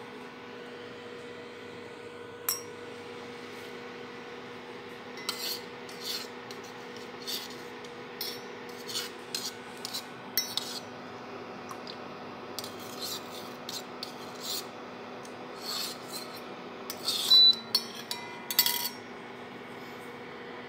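A metal spoon stirring coconut milk in a small stainless steel pot, scraping and clinking irregularly against the pot, loudest near the end. Under it runs the steady hum of the electric cooktop heating the pot.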